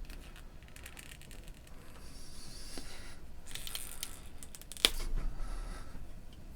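Small clicks, scraping and rustling as the old cable's molded rubber strain relief is worked out of the headphone earcup, with one sharp snap a little after the middle.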